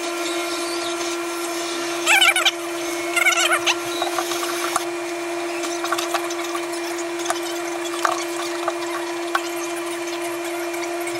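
Wooden plaque being handled and shifted on a workbench: two short squeaky rubs of wood about two and three seconds in, then scattered light knocks and clicks, all over a steady electrical hum.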